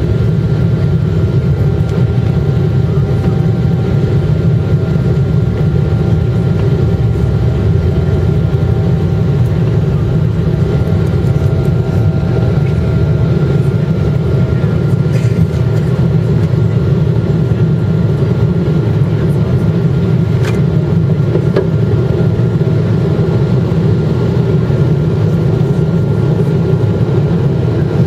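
Boeing 777-200ER's GE90 turbofan engines at takeoff thrust, heard from inside the cabin through the takeoff roll and liftoff. A loud, steady deep rumble with a faint steady whine above it.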